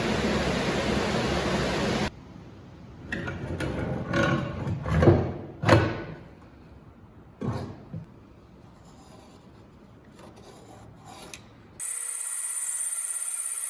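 Hand-tool work in a workshop: about two seconds of steady rasping, then a string of separate rubbing or scraping strokes, then a steady high whine that starts suddenly near the end.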